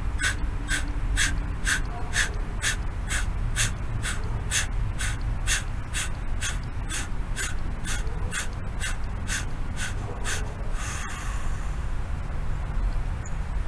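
A man breathing in kapalabhati style: rapid, forceful exhales at about two a second, each a short sharp puff of breath. They stop about ten seconds in, and one longer breath follows about a second later.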